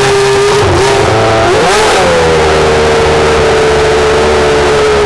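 Prost Formula 1 car's Peugeot V10 engine held at steady high revs. About a second and a half in, the revs rise briefly, fall back and settle at a slightly higher steady pitch.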